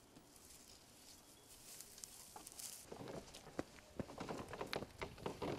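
Faint footsteps on a dry dirt track. The first two seconds are nearly empty; after that the irregular steps come more often toward the end.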